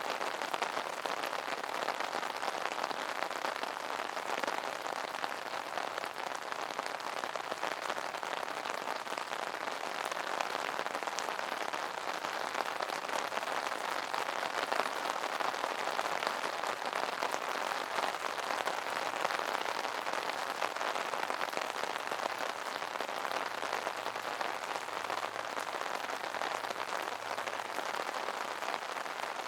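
Steady rain pattering on an umbrella canopy, a dense even patter of many small drop hits.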